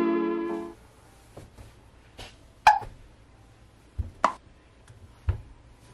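Synth background music fades out in the first second. Then a quiet room, with a few short clicks and knocks spread through the rest; the sharpest comes about two and a half seconds in.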